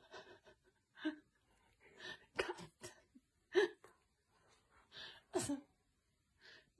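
Short, irregular bursts of snuffling and mouth noises from a Great Dane puppy mouthing a cat's head.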